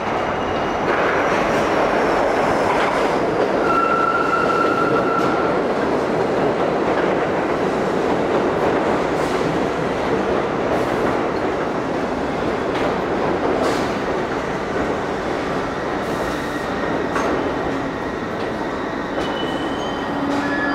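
A New York City subway train of Bombardier R62A cars pulls into the station, its steel wheels rumbling and clicking over the rails. A brief high wheel squeal comes about four seconds in, and short squeals sound near the end as the train slows to a stop.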